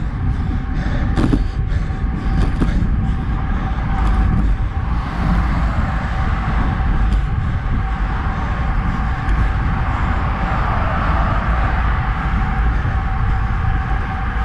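Wind buffeting a handlebar-mounted action camera's microphone on a road bike riding at about 35 km/h on Roval Rapide CLX 64 carbon wheels, mixed with tyre noise on asphalt and a faint steady hum. A few clicks and knocks come in the first few seconds.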